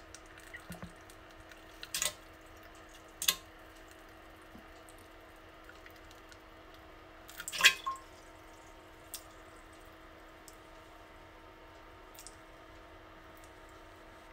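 Stool dropping into toilet bowl water: three separate plops, the loudest a little past the middle, with a few smaller drips between them.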